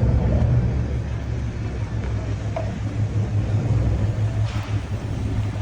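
Ferry engine running with a steady low drone and rumble.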